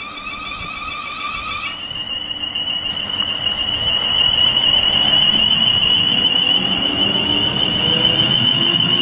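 South West Trains Class 444 Desiro electric multiple unit passing at speed, its electric traction equipment giving a high steady whine that steps up in pitch about two seconds in. The sound grows louder as the train nears, with wheel rumble on the rails building as the carriages go by.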